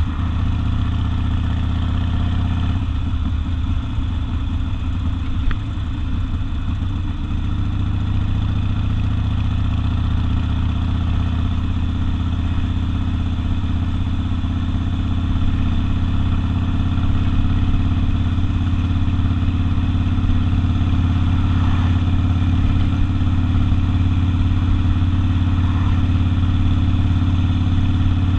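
Harley-Davidson Sportster's air-cooled V-twin running through open exhaust pipes while riding. The engine note drops right at the start, then holds steady with a rougher patch a few seconds in.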